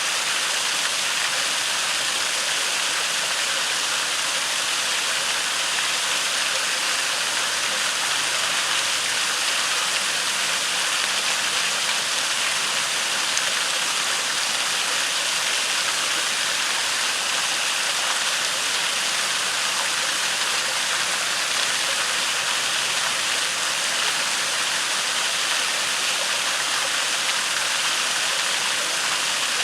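Creek waterfall rushing steadily, with water pouring into a pool.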